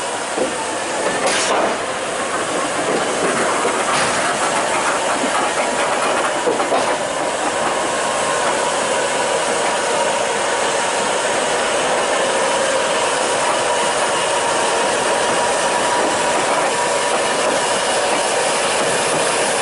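Class 234 diesel-electric locomotive running steadily as it is turned on a railway turntable, with a faint steady whine and a few sharp clanks in the first seven seconds.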